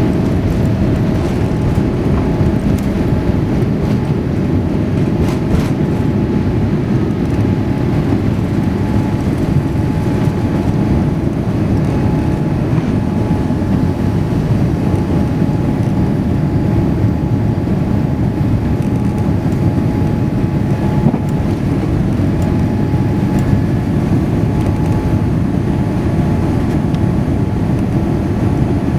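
Airliner engines and airflow heard inside the cabin during the climb after takeoff: a steady, loud, low rumble with faint steady whining tones above it.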